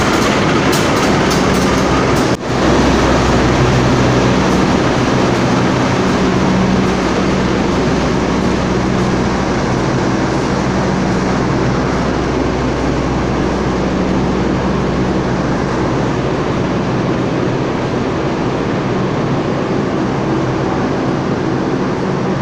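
Passenger train, the KA Sancaka Pagi, rolling slowly past on the adjacent track: a steady loud rumble with a low steady hum. Wheels click quickly over rail joints in the first couple of seconds.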